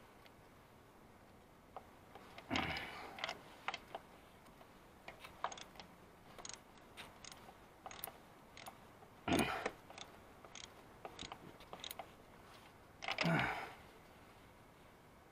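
Metal coat hanger wire scraping and clicking against the inside of a spark plug well as it is worked down to hook a stuck ignition coil rubber boot: scattered light clicks with three louder scrapes, a few seconds in, about midway and near the end.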